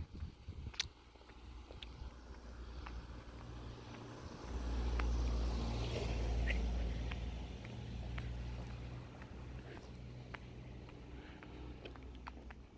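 A motor vehicle passing by: a low engine sound that swells over a few seconds and then fades away, with faint scattered clicks.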